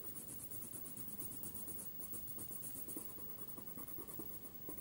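Pink coloured pencil scratching on paper in quick, even back-and-forth strokes as a worksheet box is coloured in; faint.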